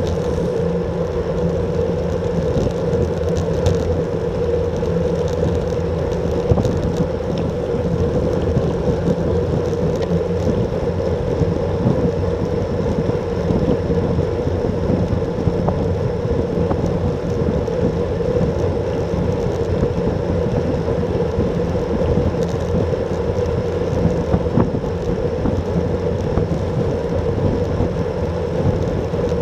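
Steady riding noise of a road bike at about 33 km/h: wind rushing over the microphone and tyres rolling on asphalt, with a constant hum.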